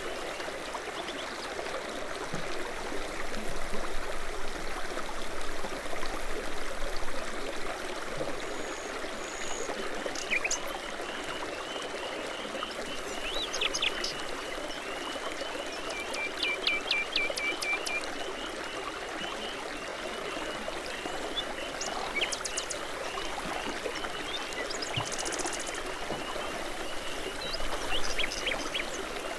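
Babbling brook running steadily, with songbirds singing over it: scattered short chirps and whistles, and a quick run of repeated notes about halfway through.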